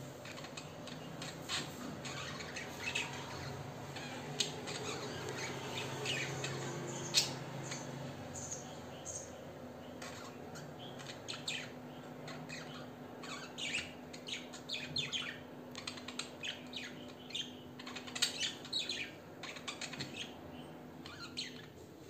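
Pet budgerigars chattering: a run of quick chirps, clicks and short warbles that grows busier in the second half, over a faint steady low hum.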